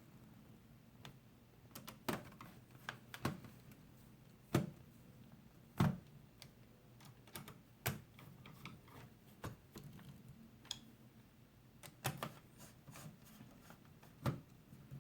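Small irregular clicks and taps of a screwdriver and screws against a Lenovo T400 laptop's plastic case as its screws are driven back in. A few knocks stand out, about four and a half seconds in, near six seconds, and near the end.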